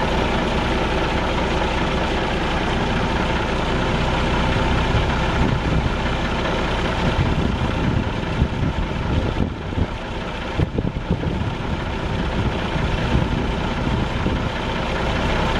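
Cummins 8.3-litre diesel engine of an International F2575 grain truck idling.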